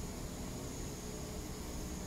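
Steady background hiss with a thin, continuous high whine and a low rumble. No toad call or other distinct event.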